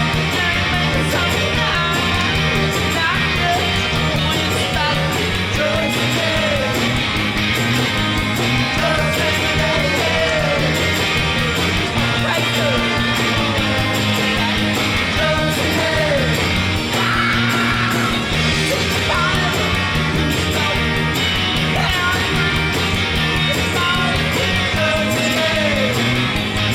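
Background rock music with electric guitar and a steady beat, and some singing.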